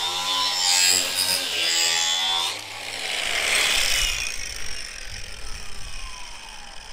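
Angle grinder grinding the edge of a steel lawn mower blade, a steady motor whine over a rough grinding rasp. About two and a half seconds in it is switched off and the disc spins down, its whine falling steadily in pitch.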